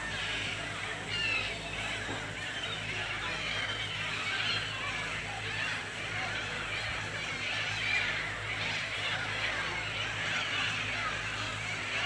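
A flock of gulls calling over and over, many short cries overlapping into a continuous clamour, over a steady low hum.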